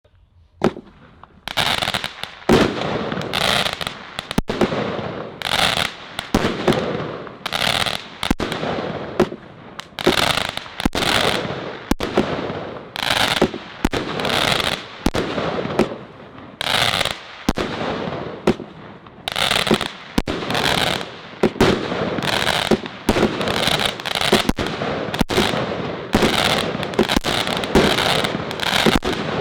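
A 25-shot consumer firework cake firing its shots one after another, roughly one or two bangs a second, with crackling between the bangs.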